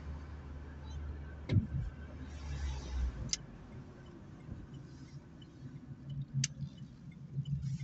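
Opel Meriva driving, heard from inside the cabin: a steady low rumble of engine and road noise that eases about three seconds in. There is a sharp knock about a second and a half in and a couple of brief clicks later.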